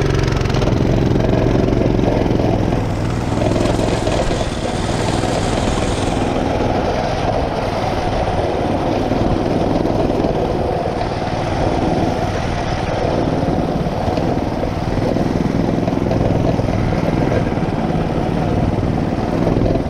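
Small single-cylinder four-stroke mini bike engine running while riding along, loud and steady with its pitch shifting a little as the throttle changes.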